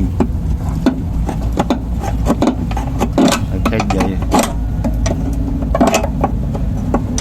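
Irregular metallic clicks and knocks of hand tools working on the shock absorber mounting bolts, over a steady low hum.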